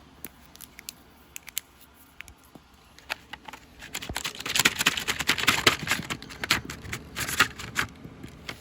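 Plastic toy and its packaging being handled: a few scattered clicks, then from about three seconds in a dense run of crinkling and sharp clicking.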